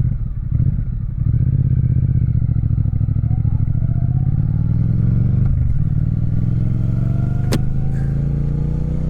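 Triumph Speed Twin 1200's parallel-twin engine pulling under way, heard from inside a saddlebag with little top end: the note climbs as the bike accelerates, drops briefly about five and a half seconds in at a gear change, then climbs again. A single sharp click sounds about two seconds before the end.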